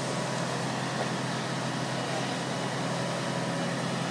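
Fire engine's engine running steadily at the scene as a low, even hum under a constant hiss, typical of a truck engine driving the water pump for the hoses.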